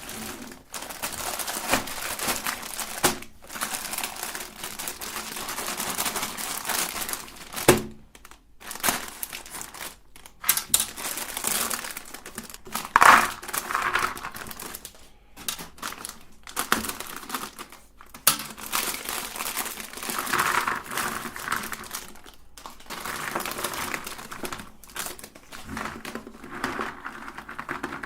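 Cookies being crushed in a meat grinder: dry crunching and crackling in irregular bursts, broken by short pauses.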